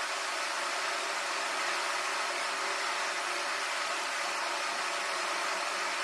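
Steady, even background noise in a parrot room, with no bird calls.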